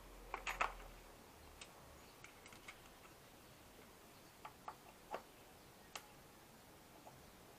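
Faint, scattered plastic clicks and ticks from a Honda Click 150 taillight lens being worked loose from its housing by gloved hands, its heat-softened glue starting to give. There is a quick cluster of clicks about half a second in, then single ticks every second or so.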